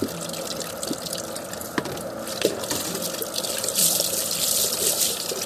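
Rain falling, with water dripping and splashing close by in many small drops. The rushing grows louder for about a second near the end.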